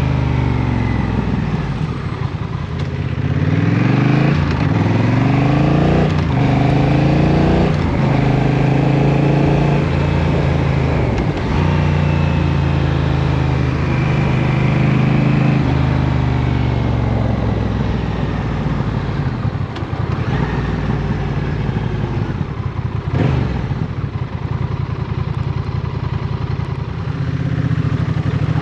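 Honda CMX1100 Rebel's parallel-twin engine pulling away and accelerating through the gears, its pitch climbing and dropping back with each upshift. It then cruises steadily, slows, and runs low before revving up again near the end, with one sharp click late on.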